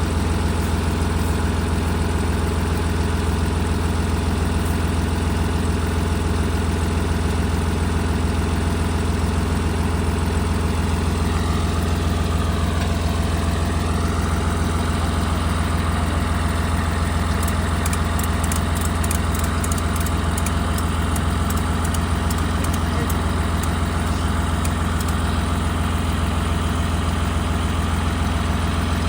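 A vehicle engine running steadily, a deep, even hum that holds the same pitch and level throughout.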